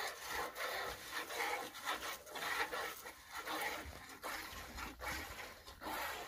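A cow being milked: streams of milk squirting into a pail in a steady rhythm of about two swishing squirts a second.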